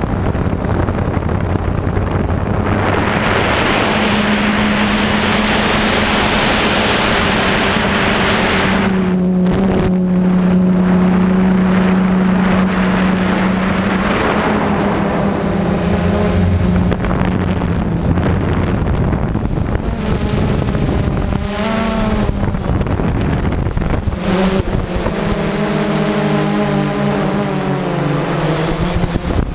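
DJI Phantom quadcopter's electric motors and propellers whining in flight, heard from the camera on board. The pitch steps and bends as the motors change speed, most in the second half, and loud rushing air noise sweeps in twice.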